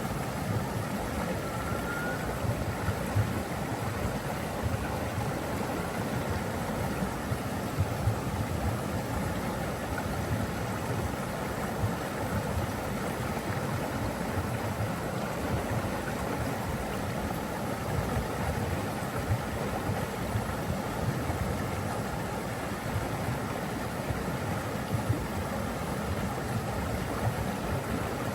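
Flowing water, a stream or waterfall, rushing steadily with a low rumble.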